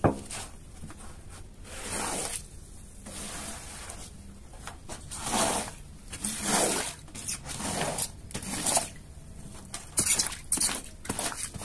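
Rubber-bladed floor squeegee dragged in repeated strokes across a soaked carpet, squeezing water out of the pile and pushing it off. Each stroke is a wet, scraping swish, coming a second or so apart.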